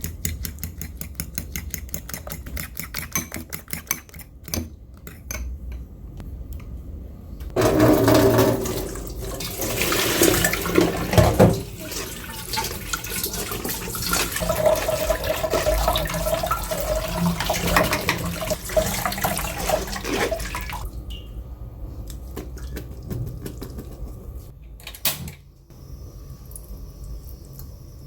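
Tap water running into a sink for about thirteen seconds, preceded by a rapid run of light ticks and followed a few seconds later by a single knock.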